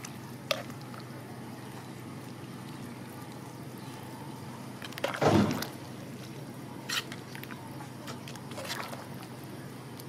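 Metal ladle stirring soup in an aluminium pot: liquid sloshing, with a louder slosh about five seconds in and a few light clinks.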